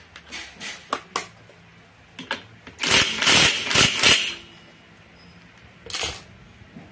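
A cordless impact wrench hammers on a scooter's CVT variator pulley nut for about a second and a half, starting about three seconds in. Light tool clicks come before it, and there is a short clatter near the end.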